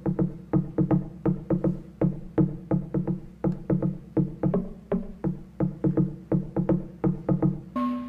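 Instrumental music built on a quick repeating figure of short, low struck notes, about four a second. Near the end a higher sliding tone and a hiss come in.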